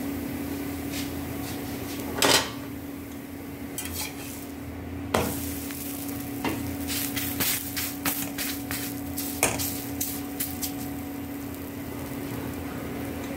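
Maize-flour roti sizzling faintly on a hot tawa over a steady low hum. Utensils knock and scrape on the pan now and then, loudest about two seconds in and again about five seconds in.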